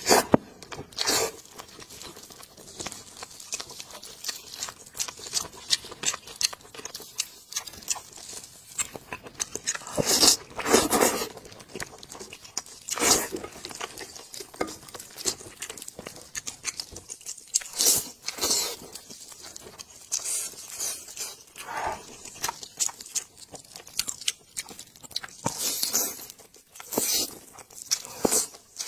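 Close-miked eating of a spiced sheep's head: meat being torn off the skull and chewed, with many small crunchy clicks and louder bites every few seconds.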